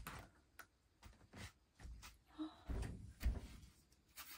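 A cat crunching dry kibble from a bowl: irregular small crunches and clicks, with a few low knocks around the middle.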